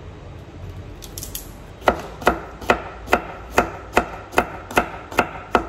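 Kitchen knife chopping garlic on a plastic cutting board. The even strokes, about two to three a second, start about two seconds in, with around ten in all.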